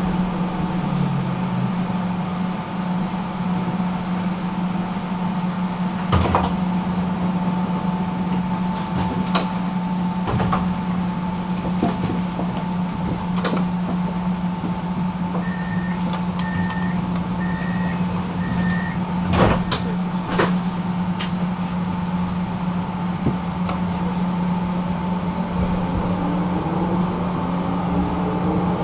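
Tram running, heard from inside the passenger cabin: a steady electric hum with rolling noise and occasional sharp knocks. A short series of four high beeps comes around the middle, and near the end the motor whine rises in pitch as the tram speeds up.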